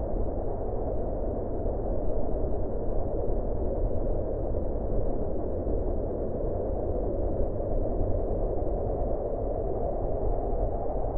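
Wind howling: a steady rushing howl with a deep rumble underneath, swelling and easing slightly.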